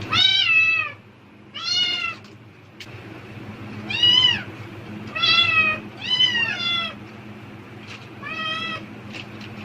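Domestic cat meowing repeatedly, about six loud, drawn-out meows in quick succession, each rising and then falling in pitch. It is calling eagerly at the rustle of a plastic bag, which the uploader takes as the cat expecting food.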